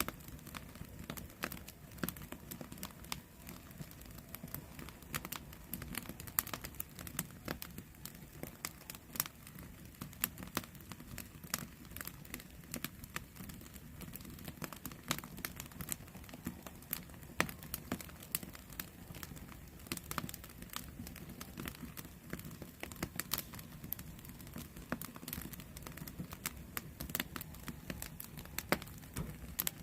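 Wood campfire crackling, with many irregular sharp snaps and pops over a low steady rumble.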